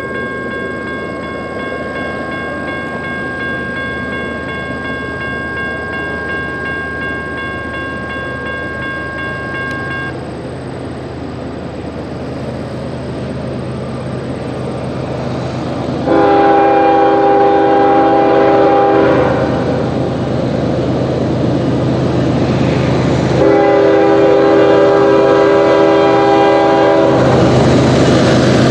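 A railroad crossing's electronic bell rings steadily and falls silent about a third of the way in, with the gates down. A diesel freight train's rumble grows as it approaches. The lead locomotive, a Norfolk Southern GE ES44DC, sounds two long horn blasts for the crossing in the second half, the loudest sounds here.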